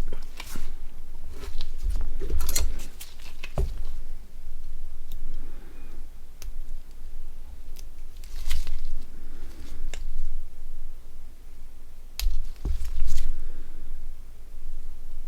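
Small plastic and metal parts of a Nokia 6680 being handled and fitted by hand: irregular light clicks, taps and scratchy scraping, with occasional dull bumps on the work surface.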